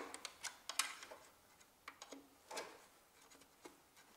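Faint, scattered clicks and light taps of hands working at a stuck plastic electrical connector on a Toyota Prius hybrid inverter, a few quick ones at the start and isolated ones after.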